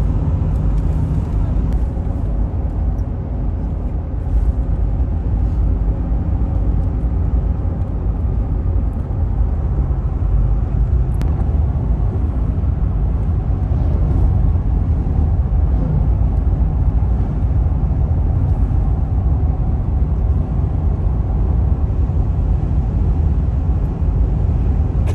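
Steady low road rumble inside a car's cabin cruising on a highway: tyre and engine noise.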